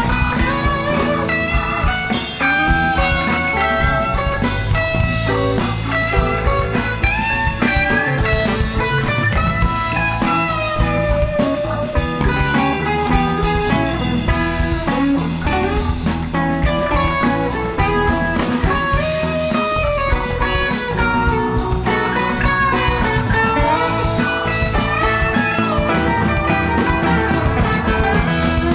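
Live rock band playing an instrumental jam: an electric guitar plays bending lead lines over drum kit and bass.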